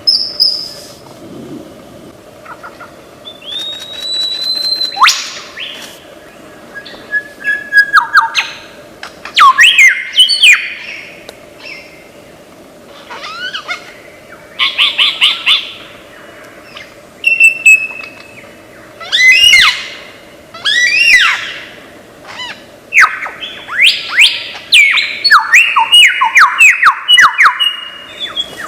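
Lyrebird singing a varied medley of mimicked calls: sweeping whistles, rising and falling glides, quick repeated notes and sharp clicks, in short phrases with brief pauses, over a faint steady hum.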